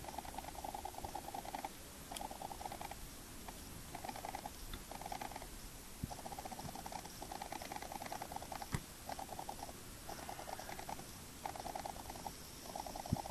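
Grey squirrel chewing seed: a rapid rasping buzz in about ten short bouts separated by brief pauses, with a sharp click about nine seconds in.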